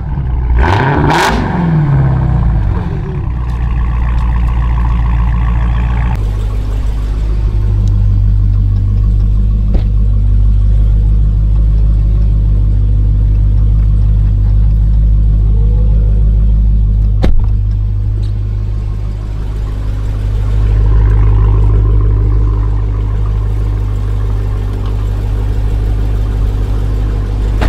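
Dodge Challenger SRT Hellcat's supercharged 6.2-litre Hemi V8 idling with a deep, steady rumble. Its revs fall back in the first couple of seconds before it settles. A single sharp click comes about two-thirds of the way through.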